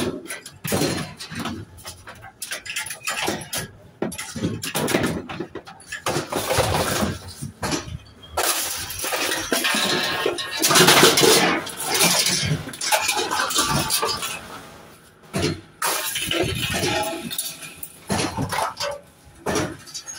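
Scrap metal being pulled out of a van's metal load bed and dropped onto a pile: irregular clanks, scrapes and crashes, loudest about eleven seconds in.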